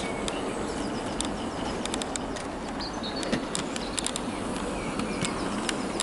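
Hornby OO-gauge Terrier model locomotives running on the layout track: a steady, fairly quiet mechanism whirr, with scattered sharp clicks of the wheels on the rails and points.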